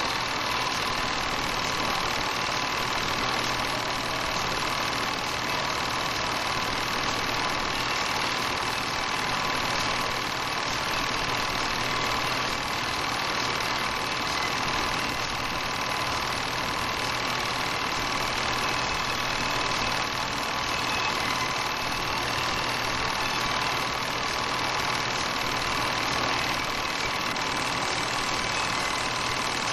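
8mm film projector running: a steady mechanical whir and rattle of the motor and film transport, with a constant hum and no changes.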